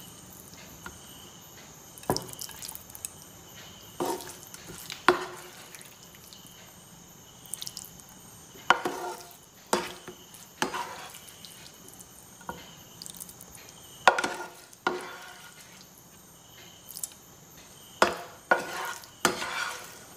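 Cooked chicken and gravy being scooped with a spatula from a non-stick pan into a metal pressure cooker: wet plops and scrapes, with sharp knocks of the spatula against the pan and the cooker every second or two.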